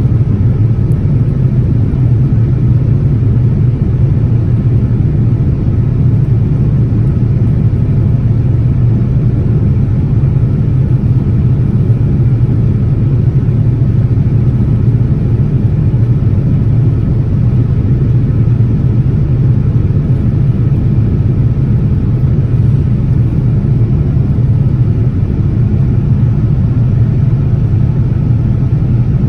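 Steady cabin drone of a Boeing 787-10 climbing after takeoff: engine noise and airflow heard from inside the passenger cabin, a constant low hum with no change.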